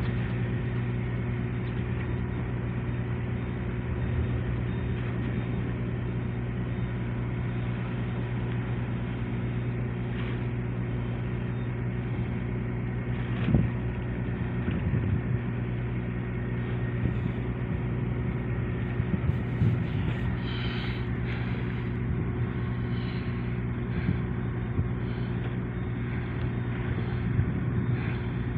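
Large engine running at a steady speed, an even low hum that holds one pitch throughout, with a few brief knocks now and then.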